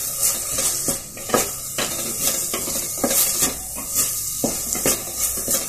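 Chopped onions sizzling in hot oil in an unglazed clay pot (mann chatti), stirred with a wooden spatula that scrapes against the pot in repeated strokes over a steady hiss.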